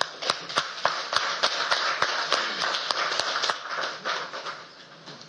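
Applause: a spread of clapping with sharp individual claps standing out about three times a second, thinning out after about four seconds.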